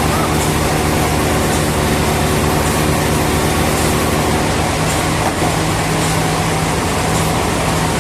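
Sawmill machinery running steadily: an engine drone under a broad rushing noise, its hum changing pitch about halfway through.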